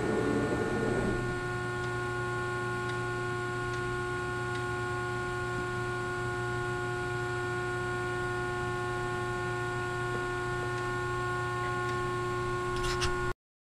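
A 190-ton CNC press brake's hydraulic power unit running with a steady hum made of several fixed tones. There is a brief rush of noise in the first second and a couple of clicks near the end, then the sound cuts off suddenly.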